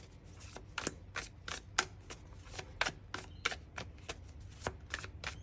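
Tarot cards being shuffled by hand: a quick, uneven run of soft card slaps and clicks, about three a second.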